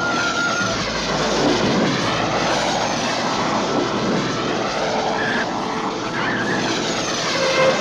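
Jet aircraft roaring past with a sweeping whoosh, swelling twice.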